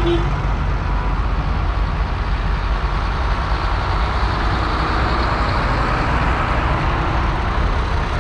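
Several tractor diesel engines running steadily in a low rumble as a line of tractors drives past.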